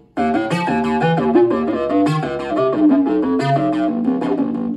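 Software-instrument chords and melody played live on an Arturia KeyLab Essential 61 MIDI keyboard controller, several notes held at once and changing. The playing stops for a moment at the start, resumes about a fifth of a second in, and ends just at the close.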